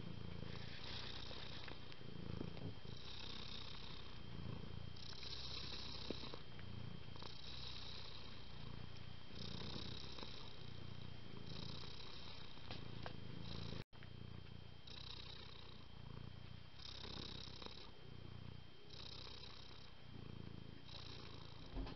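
Tabby cat purring steadily, in waves that swell and ease with each breath about every two seconds. The sound drops out for an instant about two-thirds of the way through.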